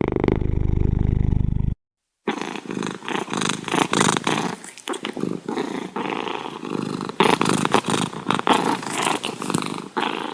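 Domestic cat purring. About two seconds in, the sound cuts out briefly, then a rougher, crackly purr with breathing takes over.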